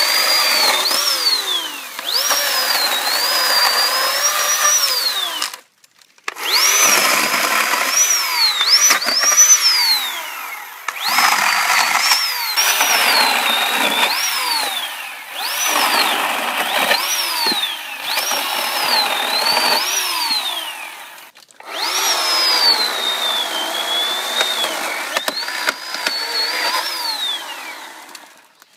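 PowerNow 40-volt lithium-ion cordless electric chainsaw cutting branches over and over: a high motor whine that sags in pitch as the chain bites into the wood and glides down each time the trigger is let go.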